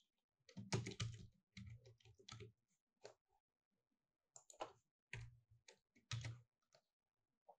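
Computer keyboard being typed on: scattered keystrokes in short irregular groups, some with a dull low thud.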